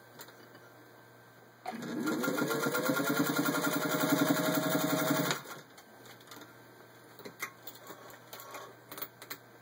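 Singer 201-2 sewing machine's electric motor starting a couple of seconds in, rising in pitch as it comes up to speed, then running steadily for about four seconds while stitching through six layers of denim, and stopping abruptly. A few light clicks follow as the fabric is handled.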